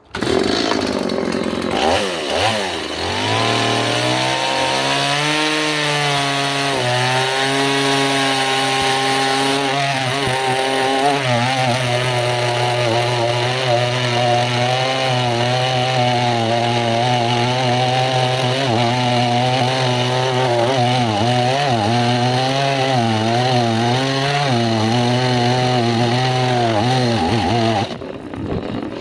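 Chainsaw cutting into a white oak trunk, its engine running under load with a pitch that wavers continually as the chain bites. The engine note dips briefly near the end.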